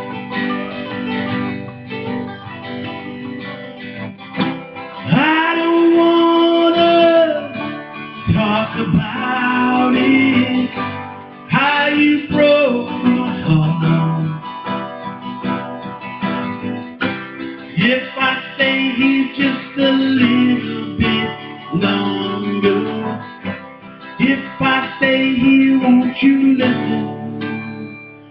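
Two acoustic guitars playing a slow ballad: one strumming the chords while the other picks a melody line up the neck.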